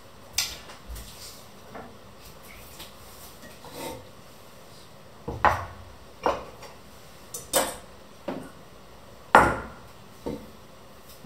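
Crockery being handled and set down on a wooden table: a series of separate clinks and knocks from mugs and dishes, spaced irregularly, with the loudest knock about nine seconds in.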